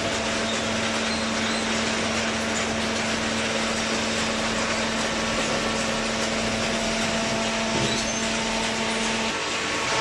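Steady machine noise from a running hydraulic waste-paper baler: a continuous dense hum with a constant low tone that stops about nine seconds in.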